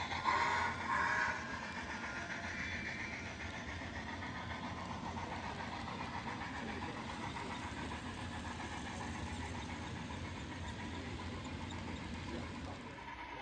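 HO-scale model steam locomotive running on a layout, its onboard sound system and running gear giving a steady running noise, louder for the first second or so.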